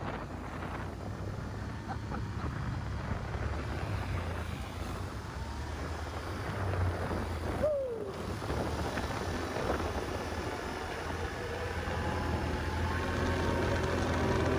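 ATV (quad) engine running steadily, getting louder near the end.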